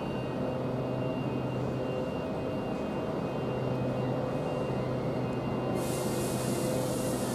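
Southeastern Class 395 Javelin electric multiple unit running slowly into the platform and drawing to a stop, with a low steady hum. About six seconds in, a sudden steady hiss starts and keeps going.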